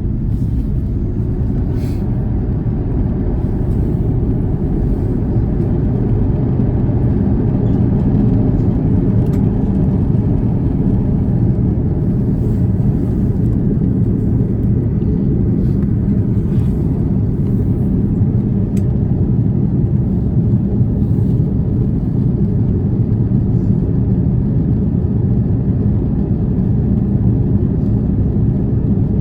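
Steady low rumble inside the passenger cabin of an Airbus A330 airliner.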